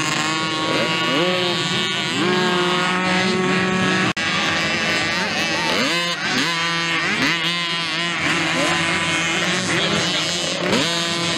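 Several 55cc-class two-stroke mini motocross bikes racing past. Their engines rev up, each pitch rising and then holding as they accelerate, over and over, with a brief dropout in the sound about four seconds in.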